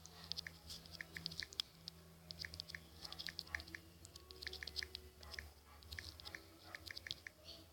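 A faint run of small, quick, irregular clicks and ticks, several a second, over a low steady hum.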